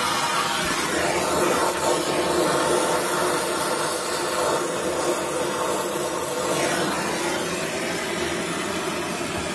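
Donmet 132A micro gas-welding torch flame burning with a steady hiss while welding a steel pipe.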